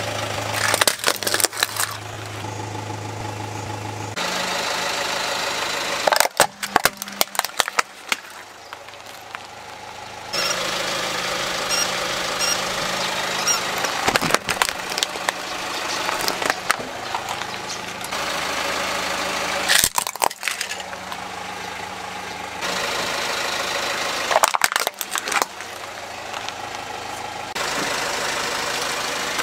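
Car engine idling under a slowly rolling tyre, broken several times by clusters of sharp cracks and snaps as the tyre crushes plastic toys. The steady hum changes character at each edit.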